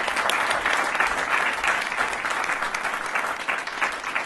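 Audience applauding, a dense steady clapping of many hands.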